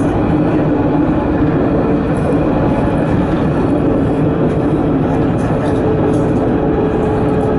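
Tram running steadily along its track, heard from inside the driver's cab: an even rumble of wheels on rail with a low steady hum running through it.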